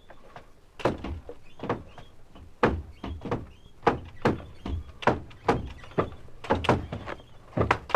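Doors opening and closing one after another: a string of sharp latch clicks and thuds, a dozen or so over several seconds.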